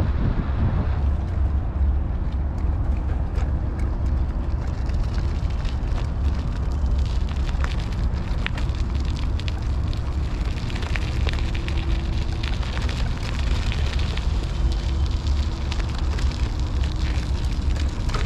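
Lime electric scooter rolling over gravel and dirt, its small tires and frame crackling and rattling over the rocky ground from about a second in, under a heavy wind rumble on the microphone.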